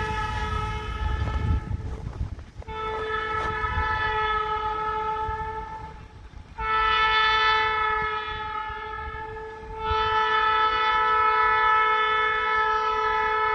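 Diesel freight locomotive's horn blowing for a grade crossing: a chord of several notes sounded in long blasts with three brief breaks, the last blast still sounding at the end.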